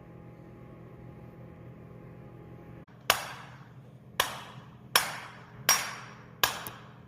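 Five hammer blows on a pressed-together dirt bike crankshaft, roughly one every three-quarters of a second, each with a short metallic ring: knocking the twist out of the crank to true it.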